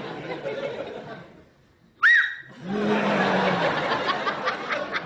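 Theatre audience laughter fades almost to nothing, then a sudden loud, short, high-pitched blast about two seconds in sets off a fresh wave of laughter.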